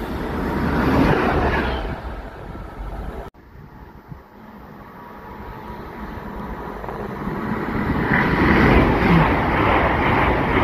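A Class 66 diesel locomotive approaching on the through line, its engine and wheels growing louder until the sound cuts off abruptly about three seconds in. Then a Great Western Railway Intercity Express Train comes through at speed, a rising rush of wheels and air that is loudest near the end.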